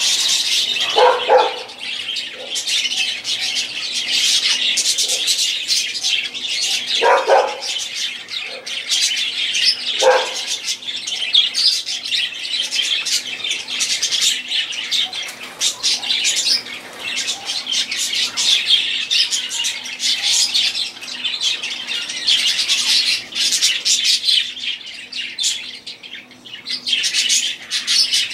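Budgerigars chattering in a dense, continuous stream of high chirps, with a few lower calls standing out about a second in and around seven and ten seconds in.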